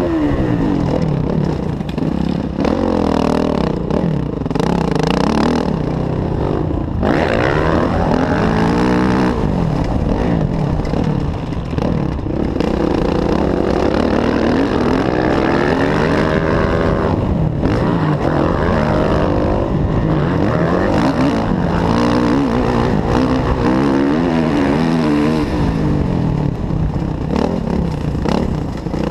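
Kawasaki KX450F's single-cylinder four-stroke engine, heard from on board, running hard on a dirt track. Its pitch rises and falls continually as the throttle is opened and closed.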